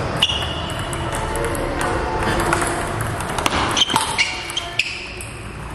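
Table tennis ball clicking off the paddles and the table in a rally: one click near the start, then a quick run of several about three and a half seconds in.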